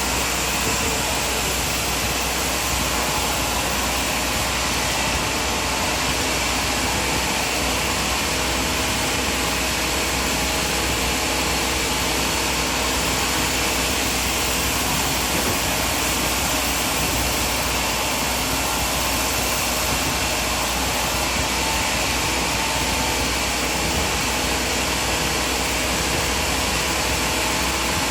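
Sawmill machinery running steadily: an even hum and hiss that holds the same level throughout, with no blade strikes, cut starts or changes in pitch.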